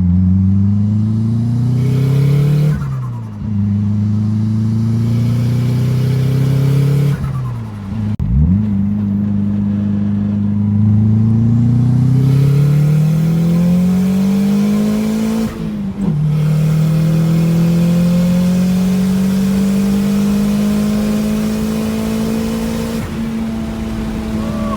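Mitsubishi Eclipse GSX's turbocharged inline-four pulling hard through the gears: the engine pitch climbs steadily in each gear and drops at three gear changes, with a short turbo flutter as the throttle is lifted for each shift. The last gear is a long pull whose pitch rises only slowly.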